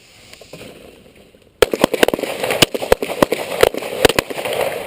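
Pistol shots from several shooters on a firing line, each firing two rounds: about a dozen sharp shots in a ragged volley, starting about a second and a half in and lasting about two and a half seconds.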